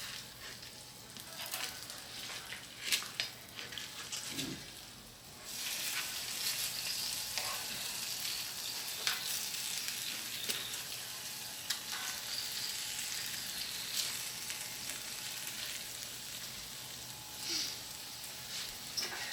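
Chicken thighs sizzling in their own rendered fat in a hot pan as they are turned over, with light clicks of a utensil against the pan. The sizzle grows louder and steadier about five seconds in.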